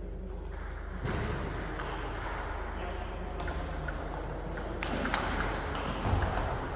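Table tennis rally: a celluloid-style plastic ball clicking off bats and the table in quick alternation, with a few sharp knocks about a second apart through the second half.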